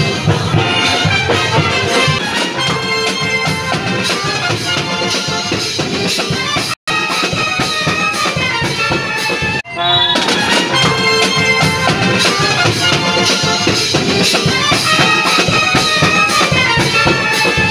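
Upbeat instrumental music with a steady beat, cutting out for an instant about seven seconds in and dipping briefly again near ten seconds before carrying on.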